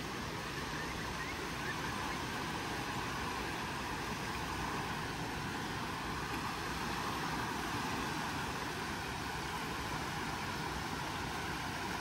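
Waves washing onto the beach in a steady, even rush.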